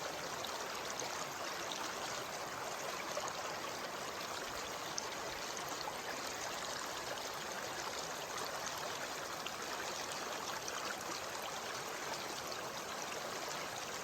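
Mountain stream flowing: a steady rush of running water.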